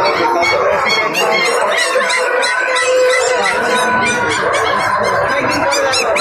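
A dense, unbroken din of many birds calling at once, rapid high chirping over lower, harsher calls, as from a market's caged birds and fowl.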